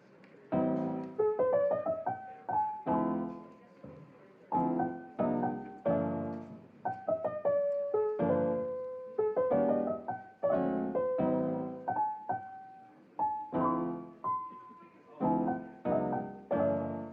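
Background music: a gentle piano piece playing a slow melody over struck chords, each note ringing and fading.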